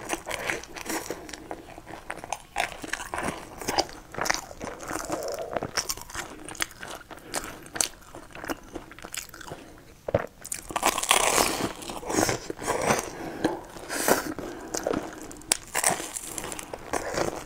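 Close-up eating sounds: crisp crunching bites and chewing of a deep-fried, breaded piece of food, an irregular run of crunches that is loudest about two-thirds of the way through.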